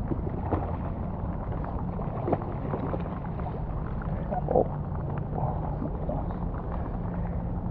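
Steady wind and rain noise on the microphone, with a few brief splashes as a hooked kingfish thrashes at the surface beside the landing net.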